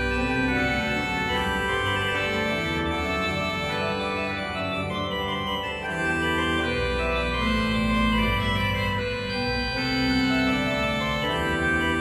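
Background organ music: slow, sustained chords held without fading, changing every second or so over a steady bass.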